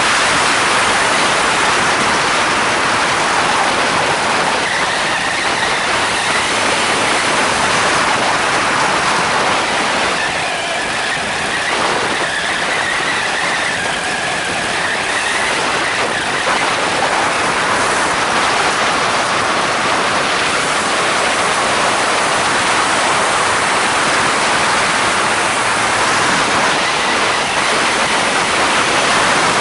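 Loud, steady rush of airflow over the microphone in flight, over the running two-stroke Polini Thor 250 engine and pusher propeller of a powered hang-glider trike. The sound eases slightly for a few seconds around the middle.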